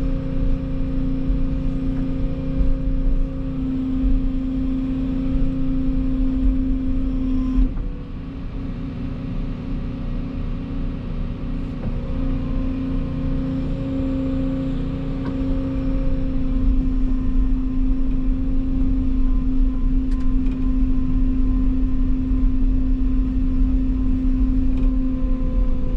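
Volvo EC220 excavator's diesel engine and hydraulics running under working load with a steady hum, quieter from about eight seconds in and louder again later on as the arm works.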